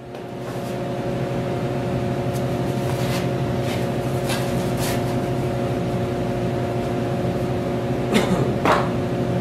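A steady mechanical hum with several fixed tones from workshop equipment runs throughout. A few faint wooden clicks come in the middle, and about eight seconds in there are two knocks as a wooden gate frame is set down upright on furniture dollies.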